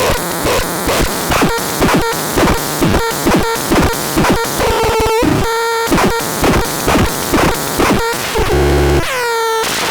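Harsh synthesized electronic noise pulsing about three to four times a second, with a steady tone joining in around the middle, a short low buzz near the end and a quick falling sweep just before it ends.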